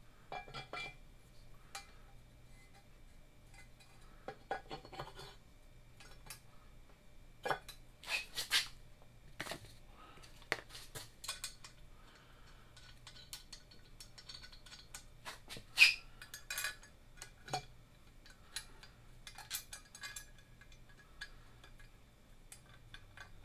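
Irregular light clinks and knocks of metal on metal as a cast aluminium motor-mount bracket and its bolts are handled and fitted against a Ford 5.4 engine block. There is one sharper clank about two-thirds of the way through.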